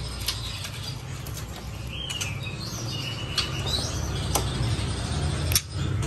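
A few short, high bird chirps and whistles over a steady low hum, with sharp clicks and knocks from a wire bird cage as a hand reaches in to catch a white-rumped shama, which flutters its wings.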